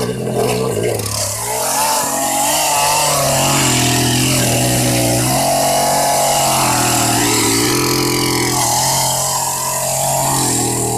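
Small engine running steadily, its speed rising and falling every couple of seconds.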